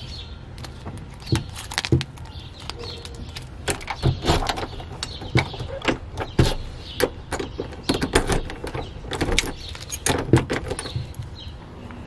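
Keys jingling on a key ring and clicking in a door's locks as it is locked: an irregular run of sharp metallic clicks and rattles.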